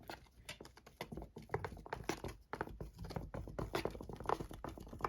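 Wooden skewer stirring a thick, sticky paste of melted deodorant, clear glue and baking soda in a container: a quick, irregular run of small clicks and wet taps.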